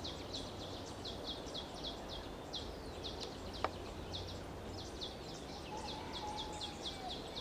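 Wetland ambience: a rapid, even run of short, high, downward-sweeping chirps, about four a second, over a steady outdoor hiss. A single sharp click comes a little past halfway, and a faint held whistle-like tone near the end.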